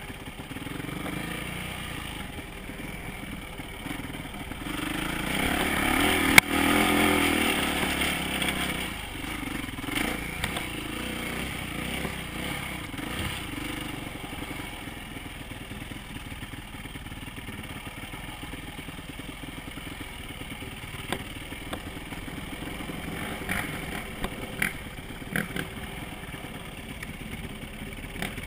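Dirt bike engine running as the bike is ridden over rough ground, the throttle opened harder for a few seconds about a fifth of the way in, with one sharp knock at the loudest point. Rattling of the bike and a few small knocks near the end.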